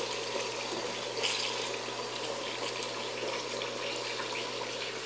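Chicken pieces frying in a little oil in an enameled cast-iron pot, a steady sizzle over low heat.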